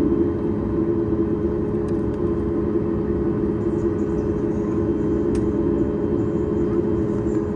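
Steady low cabin drone of a Boeing 737-8 MAX on the ground before takeoff, with a couple of faint clicks.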